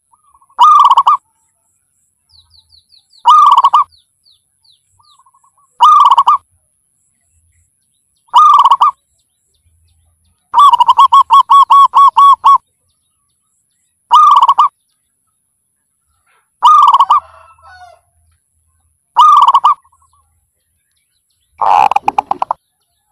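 Zebra dove cooing: short, loud rolling coos repeated about every two and a half seconds, with one longer run of rapid staccato notes in the middle. Faint high chirps from another small bird come near the start.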